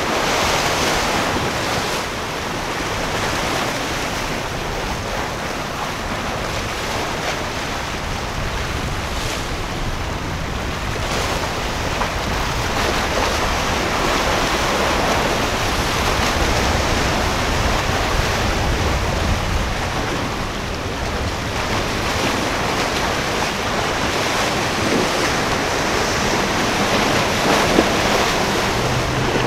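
Choppy sea and waves washing steadily, with wind noise on the microphone.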